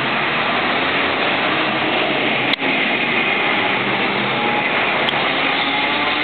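Hiroshima Electric Railway streetcar 912, formerly Osaka City 2637, running past on street track: a steady loud rolling rumble of its wheels on the rails. A faint whine rises slightly in pitch over the last couple of seconds.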